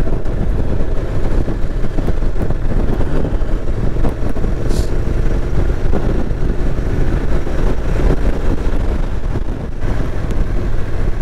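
Honda NC750X parallel-twin engine running steadily at cruising speed with wind and road noise, picked up by a camera mounted on the motorcycle.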